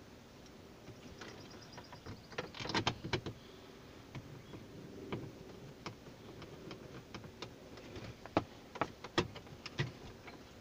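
Irregular metal clicks and taps of a 10 mm socket on an extension and the mounting bolts being handled and fitted at the bottom of the radio opening. A brief cluster of rattling knocks comes about three seconds in.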